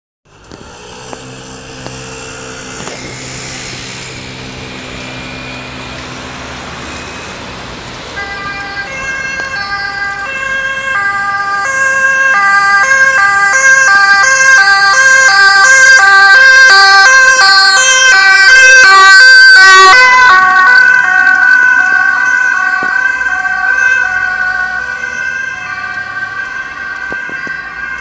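Dutch ambulance on an urgent call sounding its two-tone siren, which switches back and forth between two pitches. It starts faint about eight seconds in over a low traffic hum, grows louder as the ambulance approaches, is loudest as it passes close by about two-thirds of the way through, then fades as it moves away.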